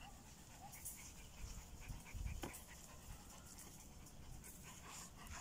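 Dogs panting quietly, with a few faint, high, short whimpers and a single soft click about halfway through.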